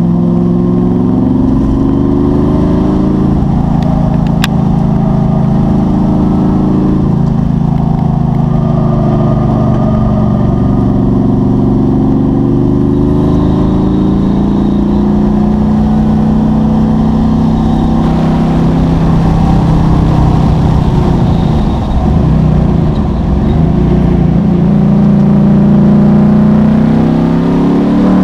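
Performance car engine under hard acceleration on a race track, its pitch climbing through each gear and dropping at the shifts and lifts, with a short lift about three quarters of the way through before it pulls hard again.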